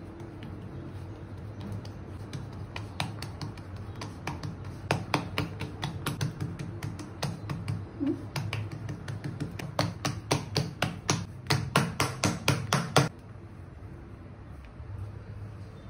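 Hands patting and slapping rice-flour bhakri dough flat on a board: a quick run of soft slaps, about two a second, that stops abruptly near the end.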